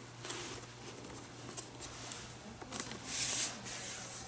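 Leather glove lace rubbing and sliding through the lace holes of a leather baseball glove as it is threaded by hand, with soft rustling and a longer swish about three seconds in as a length of lace is pulled through.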